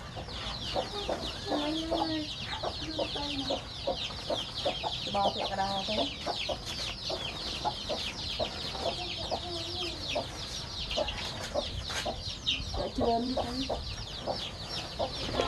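A cage full of chicks peeping without a break, many quick, high, falling peeps overlapping, while adult chickens cluck now and then at a lower pitch.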